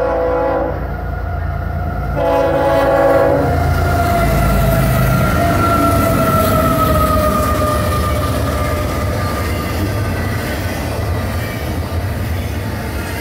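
CSX freight train's air horn, led by a GE ES44AH locomotive: a blast ending just under a second in, then a second blast of about a second beginning about two seconds in. The GE diesel locomotives then pass with a whine that falls in pitch as they go by, followed by double-stack container well cars rolling past with steady wheel-and-rail rumble and clatter.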